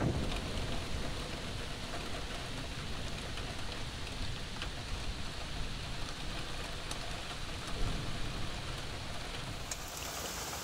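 Heavy rain falling steadily, an even hiss with scattered drop ticks; the hiss turns sharper near the end.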